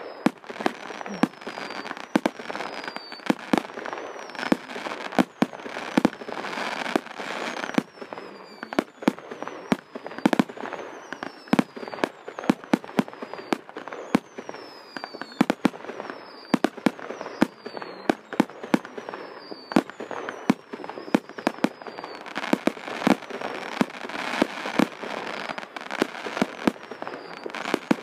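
Fireworks display going off: a rapid run of sharp bangs over continuous crackling, with short whistles falling in pitch every second or two.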